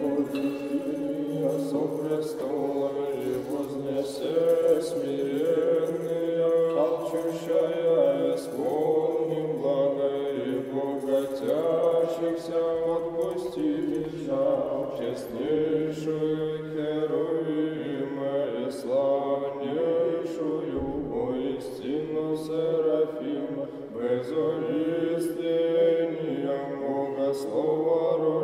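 Orthodox church chant: voices singing a slow hymn melody over a steadily held low note.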